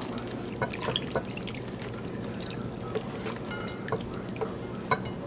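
Ceviche of shrimp, fish and onion in lime juice being tipped from a pot and scooped by gloved hands into a cut-glass bowl: juice dripping and pouring, with scattered light clicks.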